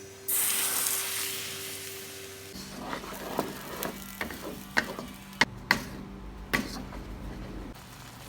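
Hot oil sizzling up suddenly as food goes into the pan and then dying down. This is followed by a run of sharp clacks and scrapes of a utensil against the pan as the food is stirred.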